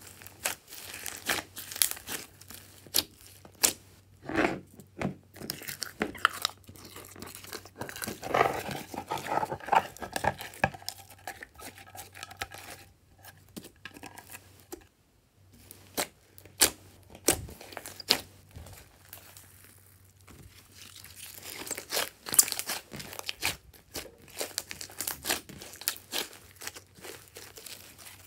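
Glossy slime mixed with small foam beads being squished and kneaded by hand: irregular wet crackling and popping, with a few short pauses.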